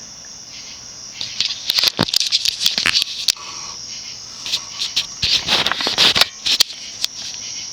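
Crickets chirping in a steady high trill, with two bursts of sharp clicks and rustling, about a second and a half in and again around five seconds in.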